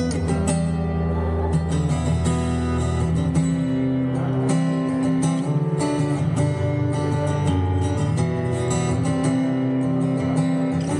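Music: acoustic guitar chords strummed at a steady pace, without singing.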